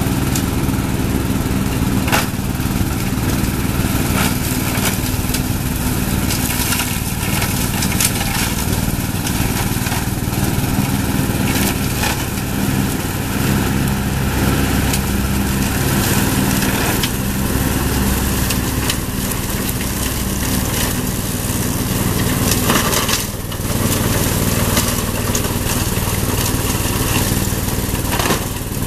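Zero-turn riding mower's engine running steadily under load as its deck blades cut and shred brush. Scattered sharp cracks and knocks come through as stems and sticks are struck.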